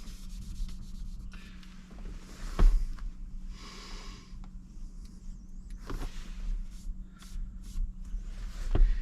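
Cloth rubbing and wiping a surface clean with rubbing alcohol, with a few handling knocks (the loudest about two and a half seconds in) over a steady low hum.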